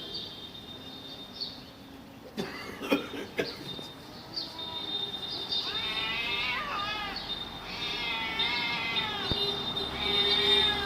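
Cats yowling in a fight, long wavering cries rising and falling in pitch, with a few sharp knocks before them.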